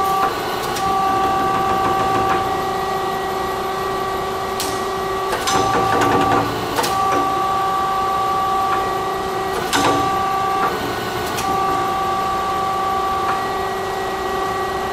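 1973 Warner & Swasey #5 ram-type turret lathe running under power: a steady machine whine of several fixed tones, broken by sharp clunks as the controls are worked. Twice, about five and ten seconds in, the whine breaks off for about a second and then comes back.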